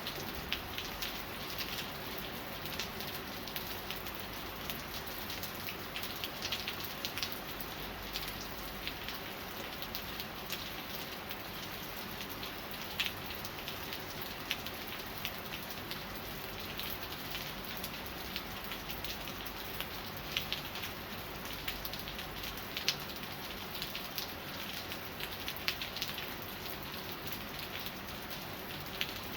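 Steady rain falling, with many individual drops ticking and splattering close by.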